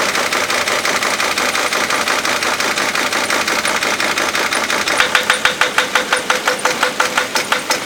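2004 Dodge Sprinter's OM647 five-cylinder diesel idling rough on four cylinders with the number 5 injector unplugged. About five seconds in a regular sharp beat starts, about four strokes a second.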